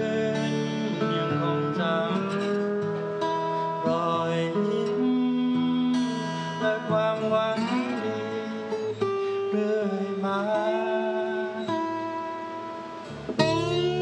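Acoustic guitar instrumental passage: plucked melody notes over sustained chords, some notes sliding in pitch, with a hard-struck chord near the end.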